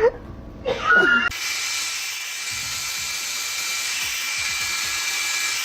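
A steady high-pitched whirring hiss with a thin whine, of a small motor, cutting in suddenly about a second in after a brief bit of voice.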